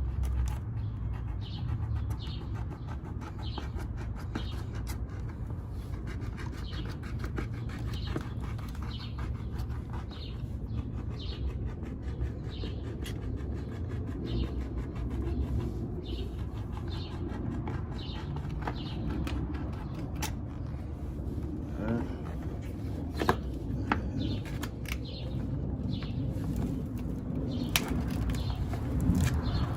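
A knife sawing and scraping through a car subwoofer's surround and cone, in repeated short strokes, over a steady low rumble. A few sharp clicks come in the last third.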